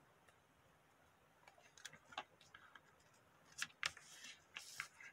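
Sheets of origami paper being handled and creased by hand. After a quiet second or so come short crinkles and clicks of paper, then a brief rustle as the paper slides and is pressed flat near the end.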